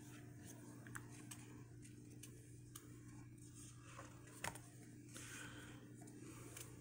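Near silence: a low steady hum with a few faint taps and clicks of tarot cards being handled and set against a stack. The clearest tap comes about four and a half seconds in.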